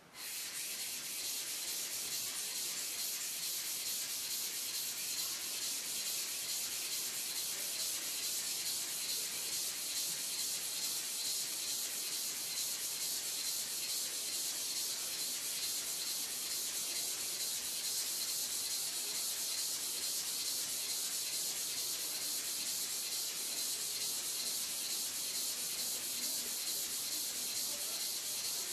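Hair clipper blade being rubbed back and forth flat on a sharpening stone: a steady, even scraping of metal on stone that starts abruptly.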